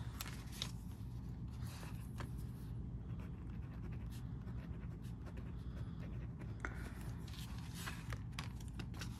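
Zebra Blen pen writing on vellum notepad paper: faint, irregular scratching strokes of the pen tip.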